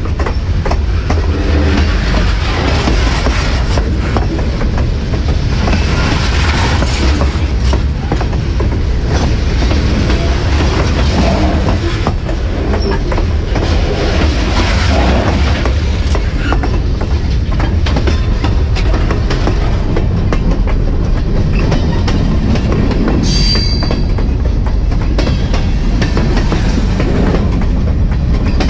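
Freight train rolling past at close range, heard from track level: a steady rumble and clatter of steel wheels over the rail. A brief high-pitched squeal comes about three quarters of the way through.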